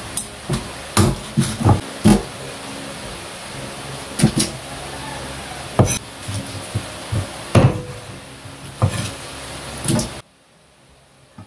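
Meat cleaver chopping through a raw whole chicken onto a thick wooden chopping board: irregular heavy chops, some in quick pairs, cutting off suddenly near the end.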